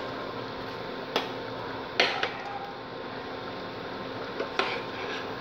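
A metal ladle stirring thick curry in a stainless steel pot, clinking against the pot's side: five sharp clinks, one about a second in, two close together near two seconds, and two more near the end.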